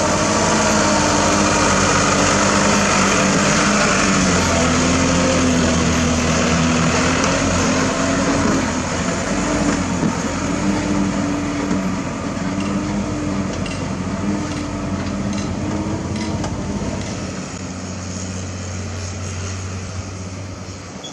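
Isuzu Elf HD dump truck's turbo-diesel engine running under load as the full truck drives off, its note wavering in pitch and fading as it moves away.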